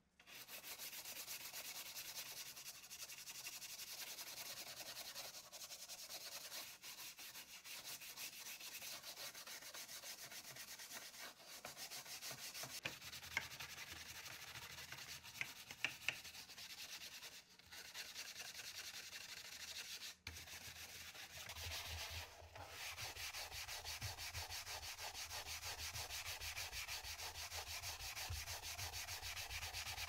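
Stiff nylon scrub brush scrubbing the soapy plastic case parts of an IBM Model M keyboard: a continuous, rapid, scratchy rubbing of bristles on wet plastic. There are a few short breaks and some small clicks partway through.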